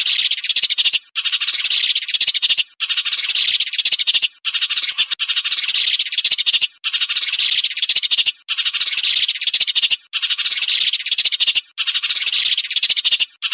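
Recorded sparrow chirping, a dense run of fast chirps in bouts of about one and a half to two seconds with brief breaks between them, a looped lure call for glue-trapping birds.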